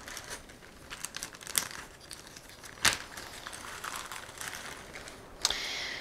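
Wire strippers working the small conductors of shielded audio cable: irregular clicks with crinkling and rustling as the insulation is stripped and the wire handled, with two sharper snaps about a second and a half and three seconds in. A brief bright rattle near the end.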